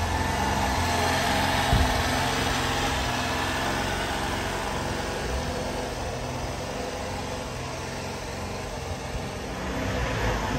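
Honda Acty mini truck's small three-cylinder engine idling steadily.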